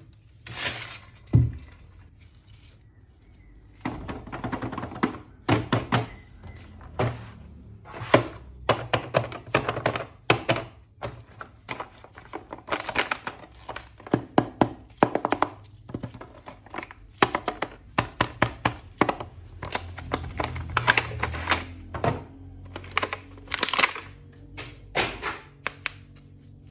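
Hard plastic toy parts being handled: many sharp clicks, taps and knocks in irregular quick runs, with short pauses.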